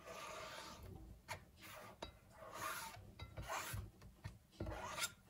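Diced cucumber being scraped off a plastic cutting board into a glass bowl: about five rasping swishes, with a few soft knocks, one near the end.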